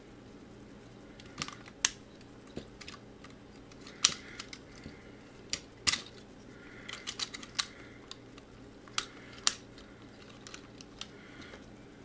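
Hard plastic parts of a transforming robot figure clicking and knocking together as they are handled and fitted into place. The sharp clicks and taps come at irregular intervals, with softer rubbing and rattling between them.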